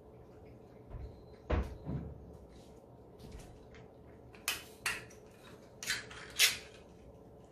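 Cats eating wet food from bowls on a wooden floor, with a few dull thumps about a second in and then four sharp clacks of bowls and a food can being handled, the last clack the loudest.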